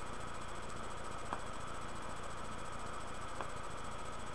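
Steady hiss of background microphone noise with a faint tick twice, about two seconds apart; no sound of the pipe smoking stands out.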